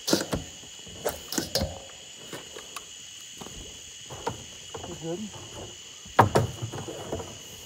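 Steady high-pitched chorus of night insects such as crickets, with scattered knocks and clatters, the loudest about six seconds in.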